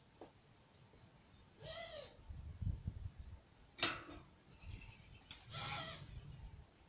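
A bird cooing: short pitched calls that rise and fall, one about two seconds in and a longer, rougher one near six seconds. A single sharp click just before four seconds is the loudest sound, with a low rumble shortly before it.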